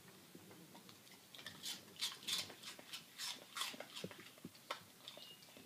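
Labradoodle crunching a piece of apple: a quick run of crisp crunches starting about a second and a half in, then a few softer chews.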